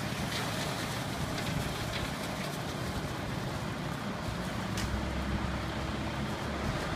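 Diesel front-end wheel loader engine running, its low rumble growing stronger about five seconds in.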